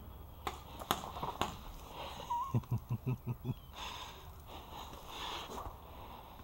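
A paintball player's running footsteps crunching on gravel, about six quick steps in just over a second, followed by breathing into the mask. A few sharp clicks come in the first second and a half.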